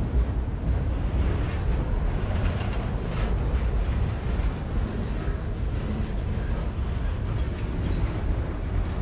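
Autorack freight cars rolling past at trackside: steady low rumble of steel wheels on rail.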